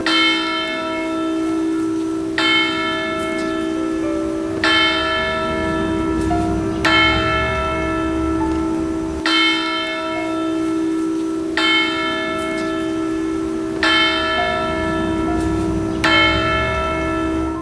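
Liberty Bell replica tolled at a slow, even pace: eight strikes about two and a quarter seconds apart, each ringing on with a long hum that overlaps the next.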